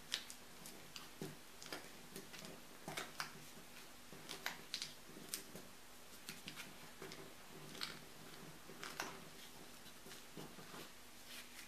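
Paper sheet being rolled tightly by hand around a bullet and mandrel: faint, irregular crinkling and ticking of the paper, over a faint steady hum.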